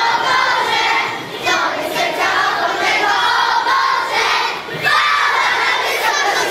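A large crowd of young children singing and shouting together, loud and dense, with brief breaks between phrases.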